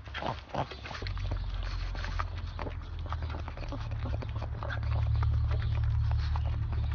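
A pug licking and lapping at an ice cream cone: quick wet smacks and clicks, repeating throughout, over a steady low rumble that comes in about a second in and grows louder.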